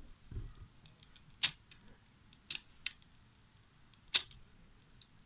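Transport piano-keys of a Technics RS-D200 cassette deck's tape mechanism being pressed, giving a handful of sharp mechanical clicks, the loudest about a second and a half in and about four seconds in, with a dull low thump about half a second in.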